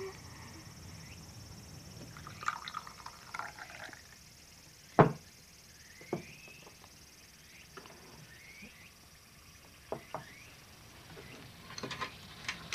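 Tea poured from a ceramic teapot into a small teacup, with short rising sounds as the cup fills. Crockery knocks and clinks on the wooden table, the loudest a sharp knock about five seconds in and a cluster of small clinks near the end.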